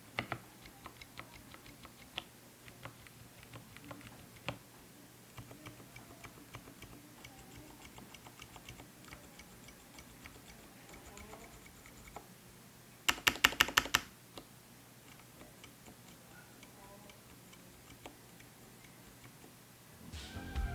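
Keychron K6 hot-swap mechanical keyboard being typed on, with a steady stream of soft keystrokes. It is fitted with lubed silent tactile switches. A little past halfway comes a quick run of about eight louder key strikes.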